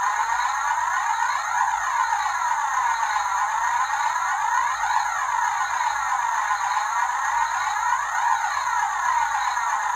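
Electronic siren-like wail, its pitch rising and falling in a steady cycle about every second and a half to two seconds.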